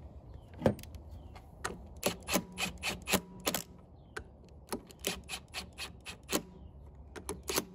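Cordless impact driver running the check-valve plugs down into a CAT pressure washer pump head in short trigger bursts: a string of sharp, irregular clacks, several a second, with one louder knock just before them.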